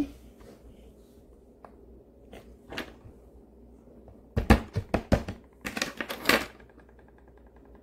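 Hands patting and pressing a lump of play dough on a tabletop: two quick runs of soft slaps and knocks, the first about four and a half seconds in and the second around six seconds in.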